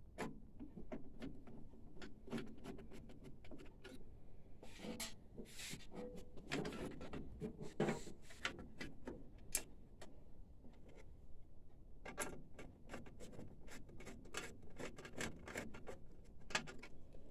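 Hands working on a printer chassis: irregular clicks, small knocks and rubbing of metal and plastic parts.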